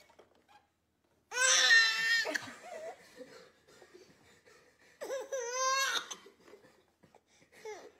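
Baby laughing in two high, squealing bursts, one about a second and a half in and another about five seconds in.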